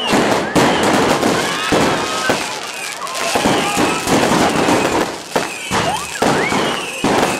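Fireworks and firecrackers going off: a dense, rapid run of bangs and crackles, with whistles gliding up and down in pitch.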